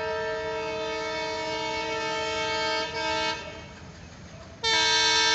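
Train horn sounding a long, steady blast that ends a little past halfway, then a second, louder blast near the end: a locomotive's warning as it approaches a level crossing.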